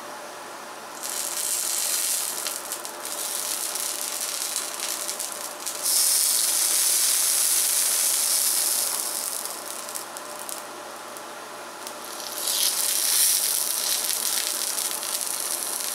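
Masa sopes frying in oil on a comal, sizzling steadily. The sizzle swells and fades in waves: it comes up about a second in, is loudest from about six seconds in, drops back around ten seconds, then rises again near the end.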